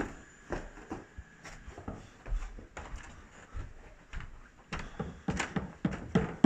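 A series of irregular knocks and clunks, about one or two a second, becoming louder and closer together near the end.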